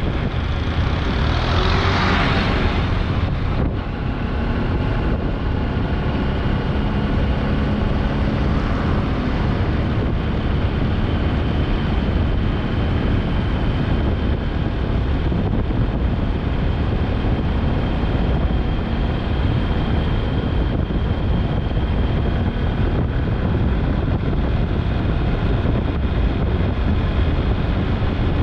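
Steady vehicle engine and road noise with wind rushing on the microphone, and a brief louder whoosh about two seconds in.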